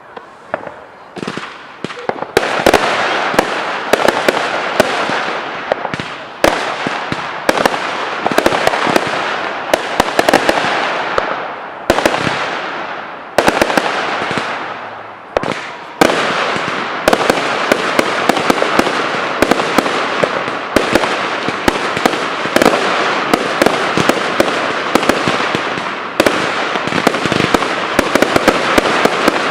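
Professional fireworks display: a rapid barrage of sharp bangs over a continuous crackle. It is sparse at first, thickens about two seconds in, and carries on with only brief lulls.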